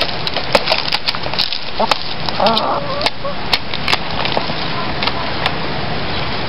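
Crisp snapping and clicking as the tough purple bracts of a banana heart are peeled and broken off by hand, irregular sharp clicks over a steady background hiss. A short call sounds about two and a half seconds in.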